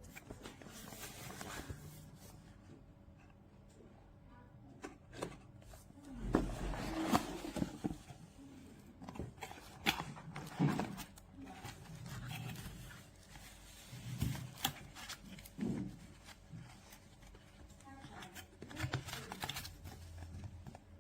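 Handling noise: irregular clicks, light knocks and rustling of an object being handled, busier from about six seconds in.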